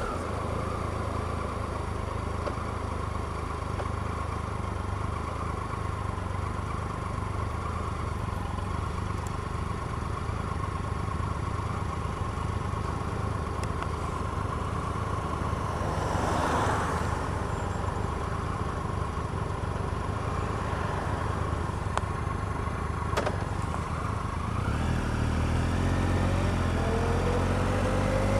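Triumph Explorer motorcycle's three-cylinder engine running steadily while riding, with a brief whoosh about sixteen seconds in. Near the end the engine pitch rises as the bike accelerates.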